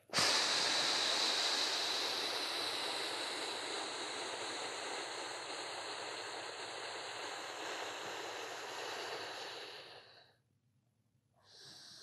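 A man's long, slow exhale, a steady hissing breath that lasts about ten seconds and fades gradually. It is the contracting out-breath of a deep diaphragmatic breathing exercise. A fainter breath starts just before the end.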